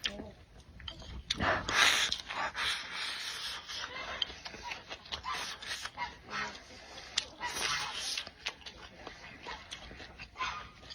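Eating sounds close to the microphone: chewing and wet mouth noises with scattered small clicks, louder for a moment about two seconds in.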